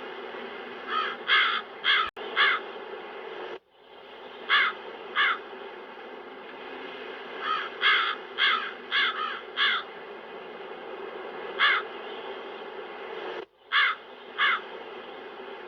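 Crows cawing, harsh short caws in loose runs of two to six, over a steady wind sound. The wind briefly cuts out twice, about three and a half seconds in and again near the end.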